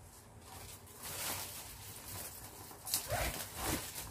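Clear plastic wrapping on a new gaming chair rustling and crinkling under hands, with a sharp click about three seconds in. Two short vocal sounds follow near the end.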